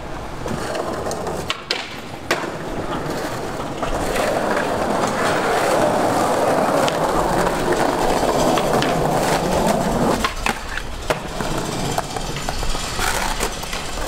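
Skateboard wheels rolling over a tiled concrete plaza, a steady rumble that grows louder through the middle and fades again, with several sharp clacks of the board and wheels striking the ground.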